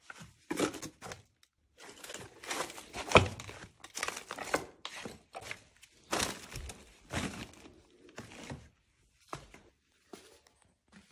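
Plastic milk crates and loose clutter being shifted and rummaged through by hand: an irregular run of rustling, scraping and clattering, with a sharp knock about three seconds in, thinning out near the end.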